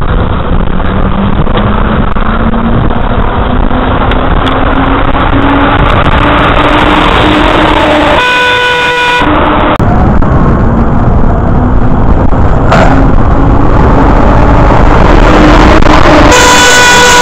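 Heavy wind and road noise on a bicycle camera with a truck engine note slowly rising in pitch as it comes up behind. A truck horn blasts for about a second about eight seconds in, and sounds again near the end as the box truck passes close.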